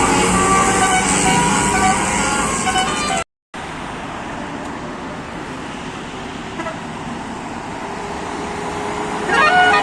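A bus's Basuri telolet horn, a multi-trumpet air horn, plays a melody of stepped tones for about three seconds. After a sudden cut there is quieter road traffic and engine noise, and the horn starts up again at the very end.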